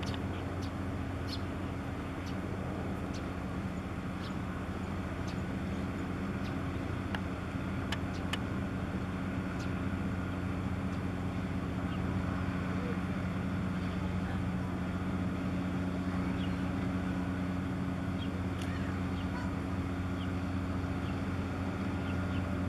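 Steady low drone of a passing chemical tanker's diesel engine, a few fixed deep tones under a light hiss, with short high chirps now and then.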